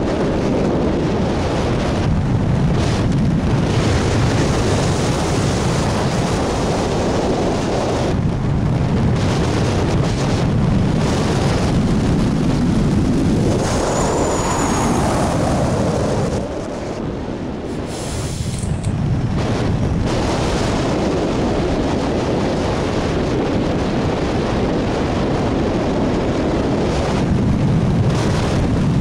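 Wind noise on the microphone of a camera mounted on a hang glider's wing in flight: a loud, steady rush of airflow that eases off for a few seconds a little past the middle.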